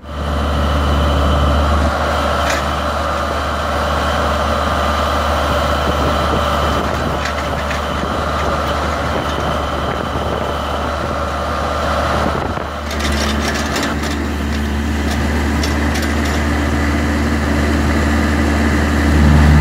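Engine of a Case 660 trencher running steadily as its backhoe digs, with a brief dip about twelve and a half seconds in.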